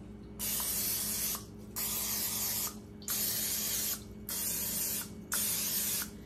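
Aerosol cooking-oil spray can hissing in five bursts of about a second each, sprayed into the cups of a metal muffin pan to grease it.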